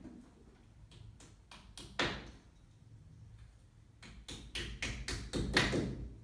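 Hammer tapping wall plugs into drilled holes in a plaster wall: scattered light knocks, one sharper strike about two seconds in, and a quicker run of blows in the last two seconds.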